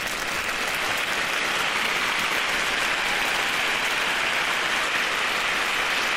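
Applause that swells over the first second into a steady, dense clapping.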